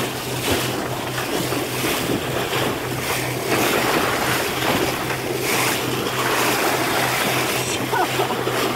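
Boat motor running with a steady low hum under the rush of water along the hull and wind on the microphone.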